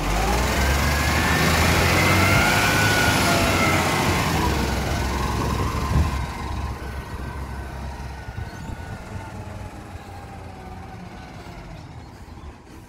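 Side-loading garbage truck's diesel engine pulling away, with a whine that rises and then falls in pitch over the first few seconds, a single knock about six seconds in, then the truck's engine fading as it drives off down the street.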